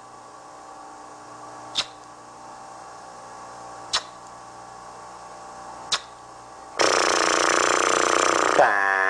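Title-sequence soundtrack: a steady hum with a sharp click about every two seconds. About seven seconds in, a much louder, dense sustained sound of many tones comes in, then drops suddenly in pitch to a held chord near the end.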